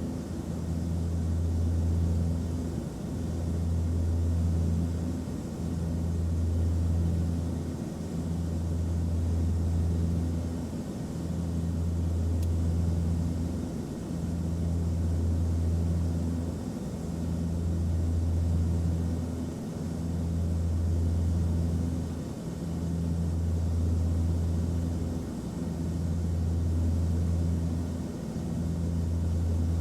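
Airplane cabin noise: a steady low engine drone over a rushing hiss, swelling and fading in a slow beat about every three seconds.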